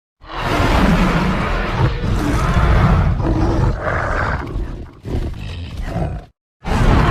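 Jagupard creature sound effect: a long, rough roar-growl lasting about five seconds. A shorter growl follows, then after a brief silent gap another roar begins near the end.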